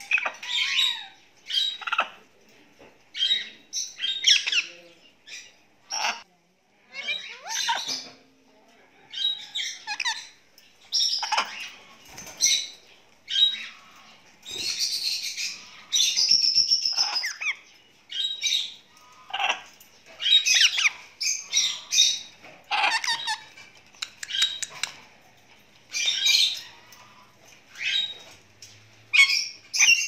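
Parrots calling in a running series of short squawks and chirps, roughly one a second, some of them sliding up or down in pitch like whistles.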